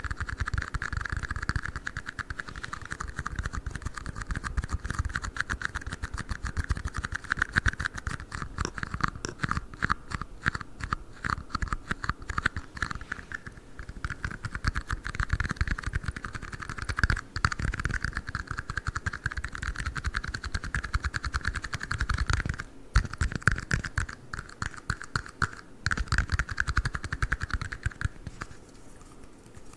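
Rapid, continuous tapping and scratching on plastic cups, with a short break about two-thirds through.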